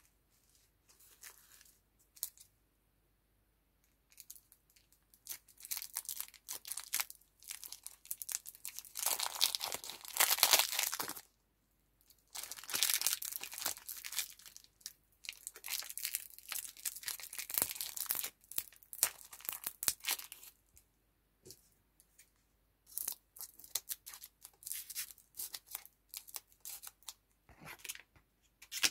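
Fingers tearing and peeling a foil-lined printed wrapper off a lollipop and crinkling the clear cellophane beneath it. A few faint clicks come first. About five seconds in, dense crackly tearing and crinkling begins in spells with short pauses, loudest about a third of the way through.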